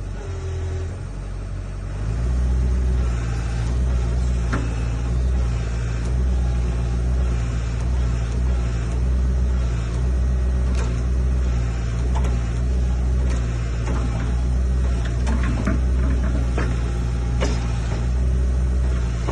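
Excavator diesel engine running steadily, its speed and loudness stepping up about two seconds in and then holding, with a few short knocks from the work on the machine, several of them near the end.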